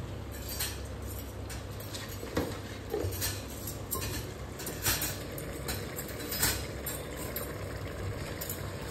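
Handfuls of marinated mutton being dropped into an aluminium pressure cooker: scattered soft wet knocks and light metal clinks from the bowl and pot, over a steady low hum.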